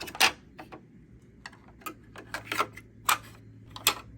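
Tool-storage insert trays knocking and clicking as they are pressed into the organizer and lock in at the corners: a series of sharp, irregular clicks, the loudest about a quarter second in.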